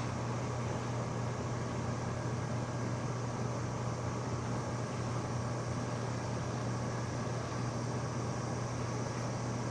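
Steady low mechanical hum under an even hiss, unchanging throughout.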